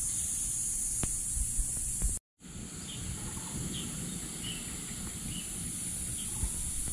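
Outdoor ambience: a steady high-pitched insect drone over a low rumble, broken by a brief cut about two seconds in. After the cut the drone is softer and a small bird chirps about twice a second.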